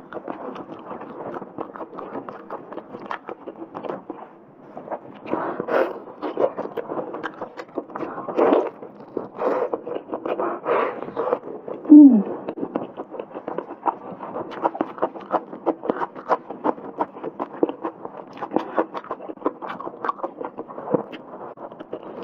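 Close-miked eating of spicy braised meat on the bone: wet chewing, lip smacks and meat being torn from the bone, with the crinkle of plastic gloves. A brief falling hum comes from the eater about halfway through.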